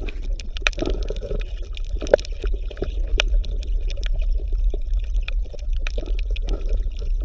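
Underwater ambience: bubbling and gurgling water with a steady low rumble and many small irregular pops.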